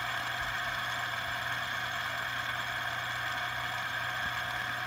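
Metal fidget spinner spinning on its bearing, giving a steady, even whirring hum.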